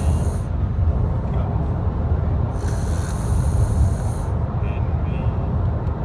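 Snoring: a steady low rumble with a hissing breath about every three and a half seconds, one ending shortly after the start and another from about two and a half to four and a half seconds in.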